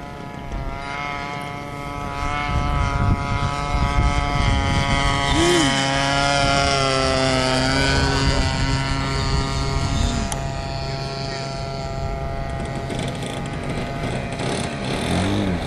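Zenoah G26 two-stroke gas engine of a large RC Cessna 182 model running in flight with its propeller. The engine note grows louder, then falls in pitch about halfway through as the plane flies past, and runs steadily after that.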